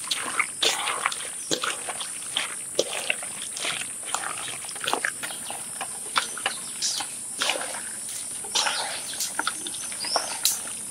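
Raw chicken pieces being kneaded by hand into a wet marinade of spice pastes and yogurt in an aluminium bowl: irregular wet squelches. A steady high insect drone runs underneath.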